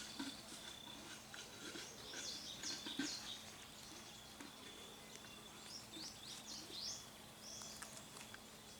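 Faint bird chirps: clusters of quick, high, falling notes, about two seconds in and again around six to seven seconds in, over a thin steady high-pitched tone and scattered light clicks.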